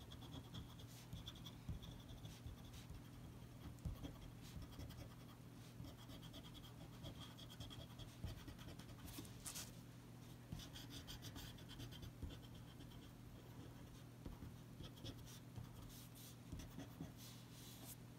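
Small pen-style eraser rubbing pencil guidelines off drawing paper in quick back-and-forth strokes, a faint dry scratching that comes in runs.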